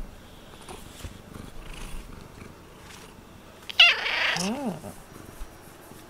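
A pet cat gives one loud, rough cry that falls in pitch, nearly four seconds in, then a short low call that rises and falls.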